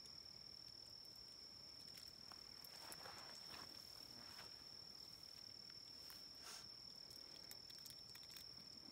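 Faint night-time chorus of crickets, a steady high trill, with a few faint rustles about two to three seconds in and again near six and a half seconds.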